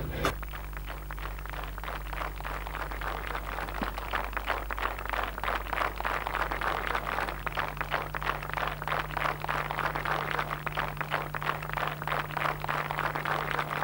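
Spectators clapping during a long jumper's run-up, many short claps close together, getting louder toward the end, over a steady low electrical hum.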